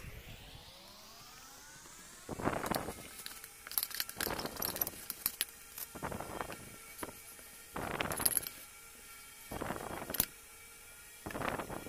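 Metal spoon and fork scraping soft soap residue off the inside of a pot in about eight separate strokes, with light metallic clicks among them.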